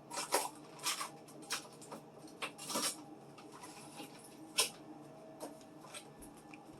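Irregular light clicks and knocks of food containers and jars being handled and set down in a refrigerator, a dozen or so scattered taps with the sharpest about a second in, near three seconds and near the middle.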